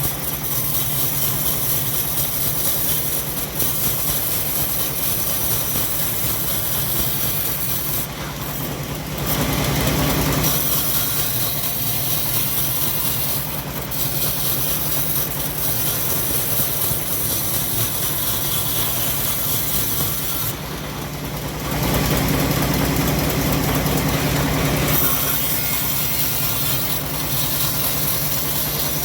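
Homemade engine-driven band sawmill running steadily while sawing teak logs into planks. It grows louder for a few seconds twice, about ten seconds in and again around twenty-two to twenty-five seconds.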